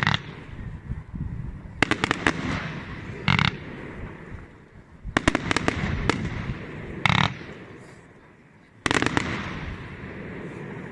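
Aerial fireworks going off in a repeating pattern: a quick cluster of sharp cracks, then a louder bang about a second and a half later, about three times.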